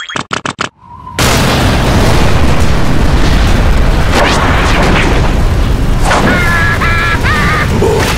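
Cartoon sound effect of water flooding in: a few quick clicks, then a sudden loud rush with a deep rumble that keeps going. Short squeaky cartoon-character cries break in near the end.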